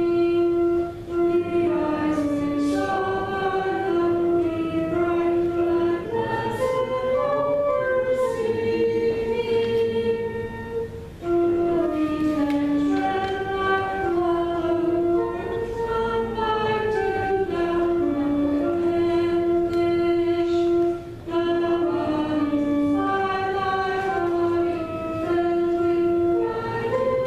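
A church choir and congregation singing a hymn together in slow, long held notes, with short breaths between phrases.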